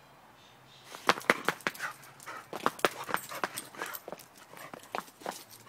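An excited American Staffordshire terrier scrambling about on brick paving: an irregular run of sharp clicks and scuffs from its claws and paws on the bricks, starting about a second in.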